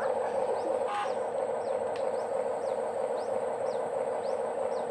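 A bird repeating short falling chirps, about two a second, over a steady whirring hum.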